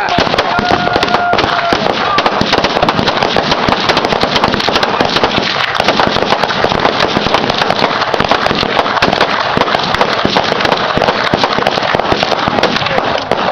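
Strings of firecrackers going off in a continuous, rapid crackle of sharp bangs.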